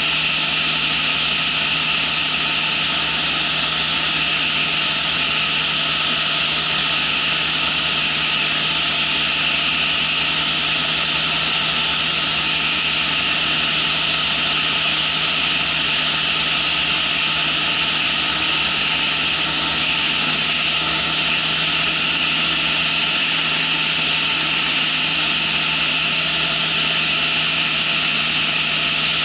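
Ultralight trike's engine and propeller running at a steady cruise: a continuous, unchanging drone with a strong hiss over it.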